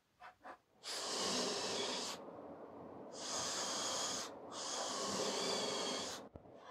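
Two short clicks, then a cordless drill-driver running in three spurts of one to two seconds each as it bores into plywood, with a high whine over the cutting noise.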